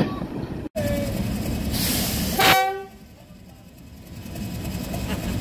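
Rail-line noise, then a single short, loud diesel locomotive horn blast about two and a half seconds in. After a sudden drop, the low rumble of the Class 31 diesel locomotive's engine slowly builds as it departs.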